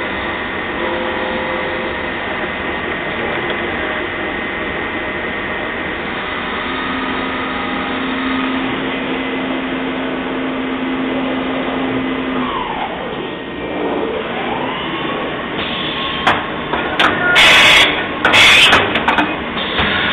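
Mori Seiki MV Junior CNC vertical machining centre running: a steady machine hum with a held tone partway through, and a whine that dips and rises about two-thirds in. Near the end come several loud bursts of noise.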